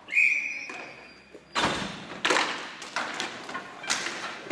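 Sharp knocks and thuds of roller hockey play: sticks hitting the puck and each other, and the puck and skates striking the plastic tile floor and boards. The first and loudest comes about a second and a half in, with more following every half second or so. A brief high squeal sounds near the start.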